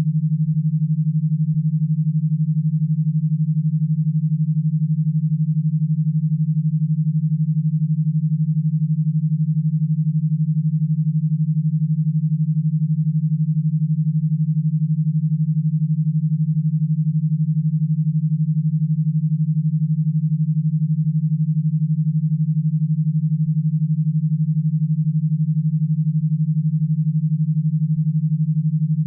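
Synthesized e-stim signal: a single low steady tone at about 150 Hz, pulsing rapidly at an even level, built around a 12 Hz stimulation rate to drive an electro-stimulation powerbox.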